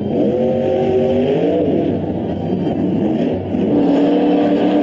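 Monster truck engines revving hard in an arena, their pitch swinging up and down. The sound gets louder about three and a half seconds in.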